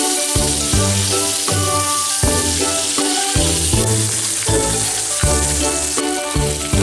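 Background music with a steady beat, laid over the steady hiss of meat and vegetables sizzling on a hot grill pan.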